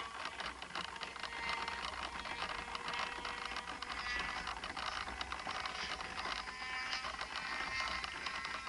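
Model airplane engine buzzing steadily in the distance, with a dense crackle of wind noise on the microphone.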